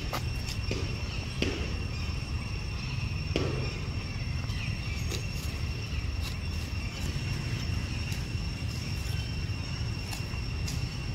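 Outdoor ambience of insects droning in two steady high tones over a constant low rumble, with a few short crackles in the first few seconds.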